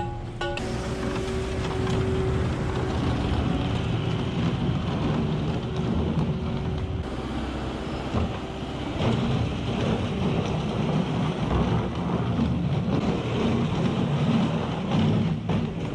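A vehicle engine running steadily, a low rumble with some noise on top.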